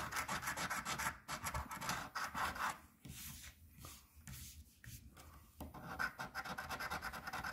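Coin scratching the coating off a lottery scratch-off ticket in quick back-and-forth strokes. There is a quieter pause in the middle.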